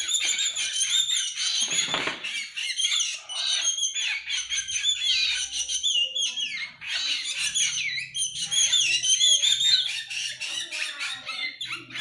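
Hand-fed young drongo chicks begging for food with a continuous run of shrill, wavering high-pitched calls.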